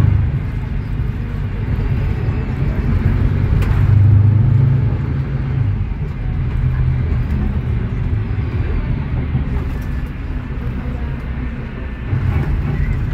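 Engine of a Mercedes-Benz O500U city bus, its OM936LA six-cylinder diesel with Voith DIWA.6 automatic gearbox, heard from inside the cabin as a steady low rumble. It swells about four seconds in, then eases off as the bus moves slowly in traffic.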